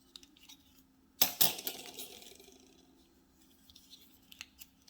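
Folding utility knife being worked by hand, clicking. A sharp double click about a second in is followed by a few lighter ticks near the end.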